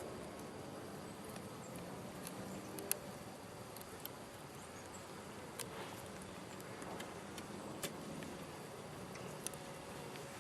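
Honey bees buzzing steadily around an open hive, with a few light clicks scattered through.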